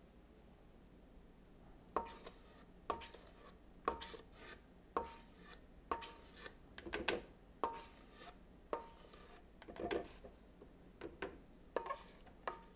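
A spatula knocking and scraping inside a stainless steel mixing bowl as thick cake batter is scraped out, about a dozen knocks roughly once a second starting about two seconds in, the bowl ringing briefly after each.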